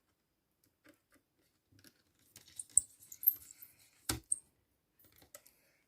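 Faint clicks and scrapes of small plastic and metal laptop parts being handled, with one sharper knock about four seconds in.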